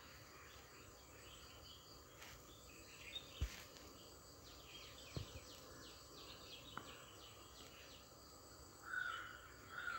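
Quiet background with faint insect and bird chirping, and a few soft thumps as the porotta dough is stretched and flapped by hand on the work surface.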